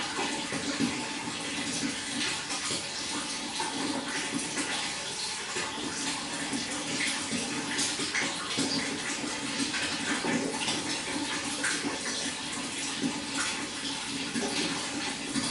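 Water pouring and splashing steadily into a fish pond, a continuous trickling rush with a constant low gurgle underneath.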